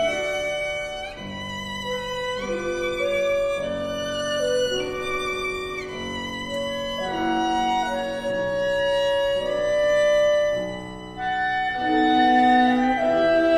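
Violin playing a slow, lyrical melody of long held notes with vibrato over a soft accompaniment, in classical style. About ten seconds in, a note swells, then the music briefly falls away before picking up again.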